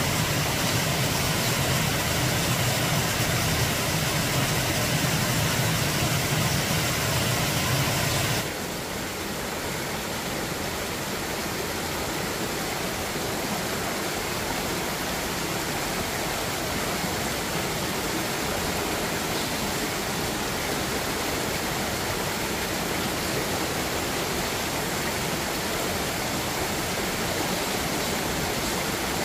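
Steady rushing noise that changes abruptly about eight seconds in, losing a low hum and becoming slightly quieter.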